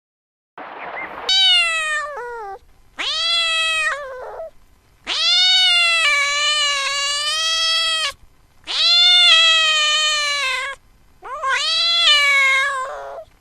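Cat meowing: about five loud, drawn-out meows, each rising then falling in pitch, the longest lasting two to three seconds. A short breathy sound comes just before the first meow.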